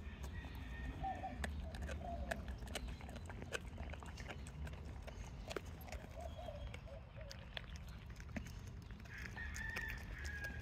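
A Husky/Keeshond mix and an Australian Shepherd chewing raw chicken feet, with many sharp crunches and clicks of teeth on bone. A bird calls in wavering notes several times in the background.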